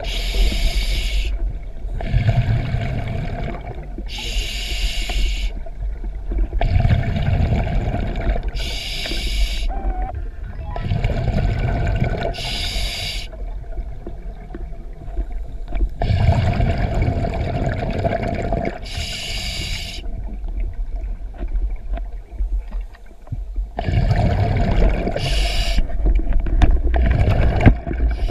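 Scuba diver breathing through a regulator underwater: a hiss of air and a rumble of bubbles, coming round again every few seconds.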